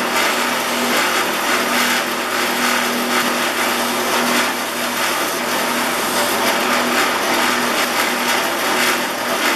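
Motor-driven wire wheel spinning while a small brass depth-adjustment knob from an old bench plane is held against it: a steady motor hum under a loud, dense scratchy hiss of wire bristles brushing the brass.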